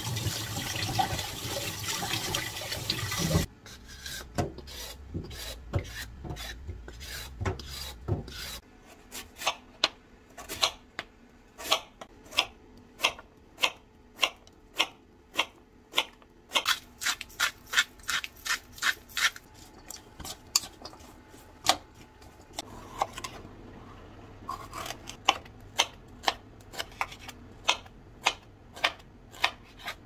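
Tap water running into a kitchen sink for about three seconds, cutting off suddenly. Then a kitchen knife slicing vegetables on a cutting board in steady, repeated strokes, about two a second.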